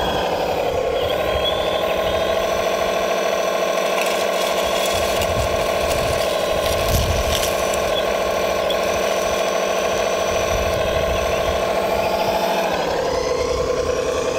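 The hydraulic pump of a 1/14-scale RC Volvo 480D excavator whines steadily. Its pitch steps up about a second in as the hydraulics are worked and drops back near the end. The bucket scrapes and knocks in the dirt a few times around the middle.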